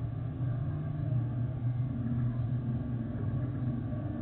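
Boeing 747-8F freighter's four GEnx-2B turbofans at takeoff thrust as the jet climbs away, heard as a steady low rumble.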